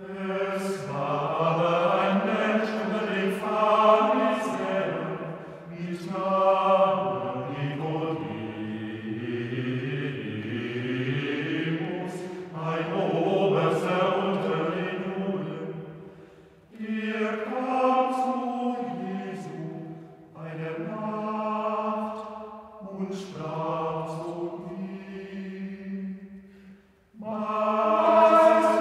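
Voices singing a slow sacred chant, phrase by phrase, with short pauses between phrases.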